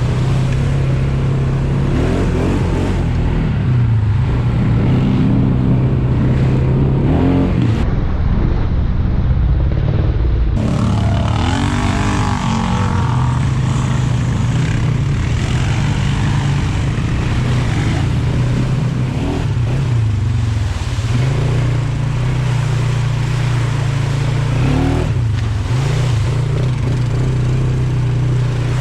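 ATV engine running under way, its pitch rising and falling as the throttle is worked.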